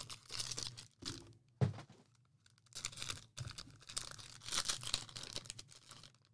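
Foil wrapper of a trading-card pack being torn open and crinkled by hand, in irregular rustling bursts, with a soft thump a little under two seconds in.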